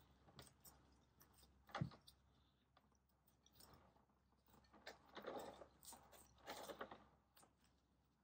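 Faint handling noises from repotting a bonsai: a single knock about two seconds in, then two short spells of low crunching and rustling later on.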